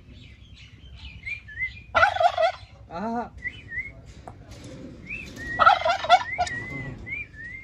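Turkeys gobbling: two loud, rapid warbling gobbles about three and a half seconds apart, with a shorter, lower call between them. Thin high chirps of small birds repeat throughout.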